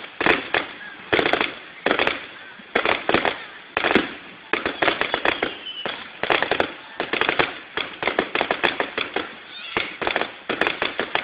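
Aerial fireworks display: a rapid, uneven run of bangs and crackling bursts, several a second, coming in clusters with no pause.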